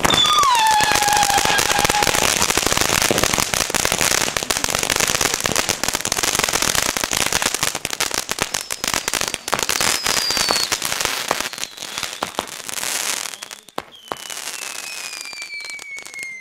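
Ground firework fountain spraying sparks: a steady hiss thick with crackling, which stops about thirteen seconds in. A few falling whistles sound over it, and one longer falling whistle comes near the end.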